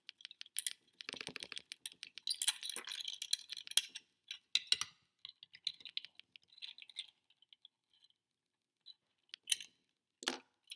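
Small plastic parts of a 1:18 Maisto Volkswagen model chassis clicking and rattling as it is handled and a wheel is worked off its axle: irregular light clicks, busiest in the first four seconds and sparser after. A short knock near the end.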